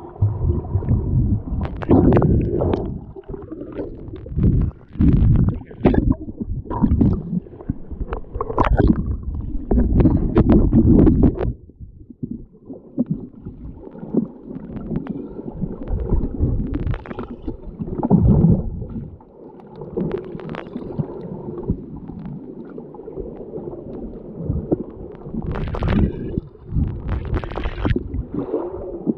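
Muffled sloshing and gurgling of water around a camera held at or below the sea surface while snorkelling, coming in irregular surges, with a quieter stretch about halfway through.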